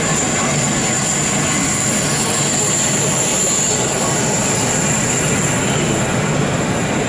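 N gauge model train running on an exhibition layout: a steady rolling, whirring sound with a thin high-pitched whine held throughout.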